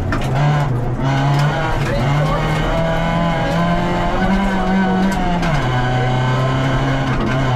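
VW Polo rally car's engine heard from inside the cabin while driving a gravel stage. The engine holds steady notes that step up and down in pitch several times, as with gear changes, under scattered knocks and clatter from the rough surface.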